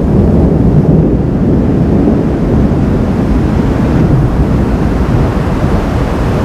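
Wind buffeting the microphone, a loud steady low rumble with no clear swells or breaks.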